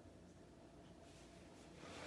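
Near silence: room tone with a faint steady hum, and a faint rustling noise that builds in the second half.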